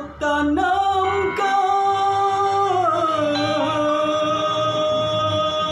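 A man singing a dangdut song, drawing out a long held note between lyric lines; the melody steps down in pitch about three seconds in.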